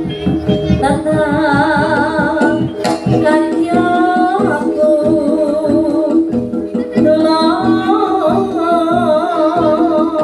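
Jaranan accompaniment music: a singer's wavering, ornamented melody over quick drum strokes and steady held instrument tones.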